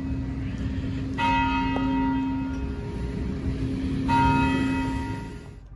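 Clock tower bell striking slowly, two strokes about a second and four seconds in. Each stroke rings on and fades over the lingering hum of the stroke before.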